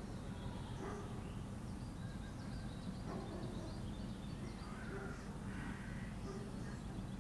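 Crows perched in trees cawing, several short calls spaced a second or two apart, over a steady low background rumble. Faint high chirps are heard in the middle.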